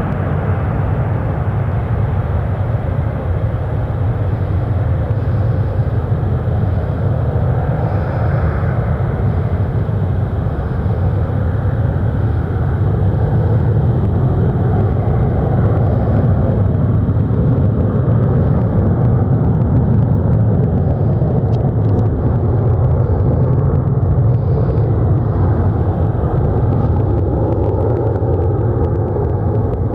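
Jet engine noise from a Boeing E-3 AWACS (707-320 airframe) flying a go-around with three engines running: a loud, steady rumble that swells slightly through the middle.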